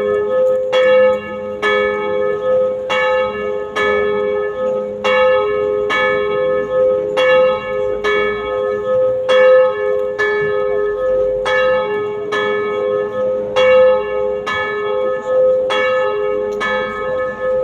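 Two church bells of different pitch tolling in alternation, each strike ringing on into the next, a funeral knell.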